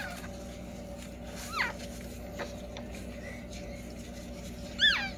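Newborn Shih Tzu puppies giving thin squeaks: one falling squeak about a second and a half in and another near the end, over a faint steady hum.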